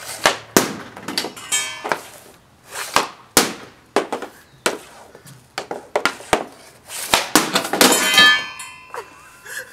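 Hockey pucks shot with True XC9 sticks off a plastic shooting pad at a TV and goal: a rapid run of sharp stick slaps and puck impacts. Two of the hits ring like metal, one about a second and a half in and a longer one about eight seconds in.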